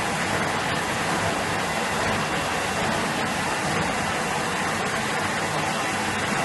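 Steady, even rushing noise of machinery running, with no distinct strokes or changes.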